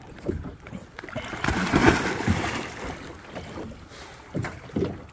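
A person jumping from a small boat into the sea, a loud splash about two seconds in, followed by water sloshing around him.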